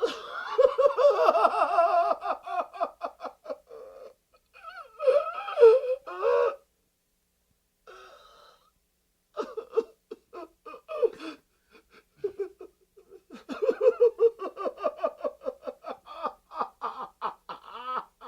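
A man crying in anguish: sobbing in rapid, convulsive gasping bursts with wailing, broken by a few short pauses.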